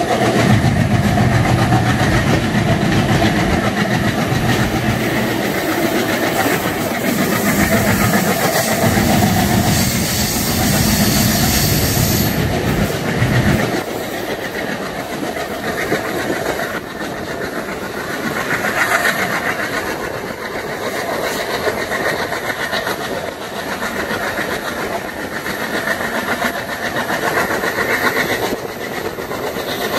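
A train moving along the rails, with the low chugging of twin WDM3A diesel locomotives heavy in the first half. The engine throb drops away suddenly about halfway through, leaving the steady rumble and clatter of the coaches' wheels on the track.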